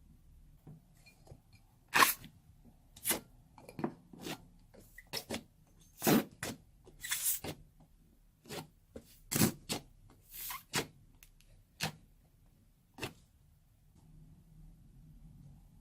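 Slime being squished and handled, giving about a dozen sharp, irregular pops and clicks, a few of them slightly drawn out.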